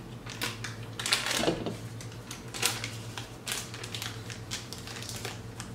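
Paper butter wrapper crinkling and crackling in irregular bursts as it is peeled off a stick of butter.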